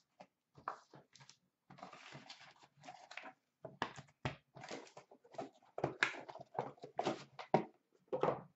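Handling of a cardboard box and plastic-cased trading cards: a quick string of short knocks, taps and rustles as the box flaps are worked and the cards are lifted out and set down in a stack on the counter.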